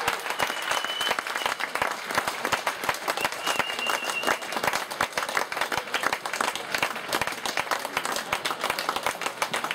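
Spectators applauding in a sports hall, a dense, steady clapping of many hands. Two short high-pitched tones sound briefly, one near the start and one about four seconds in.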